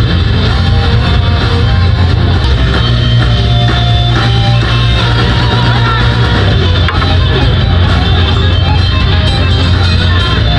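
Loud live metalcore band playing: distorted electric guitars over a pounding drum kit and heavy bass, recorded close and saturated.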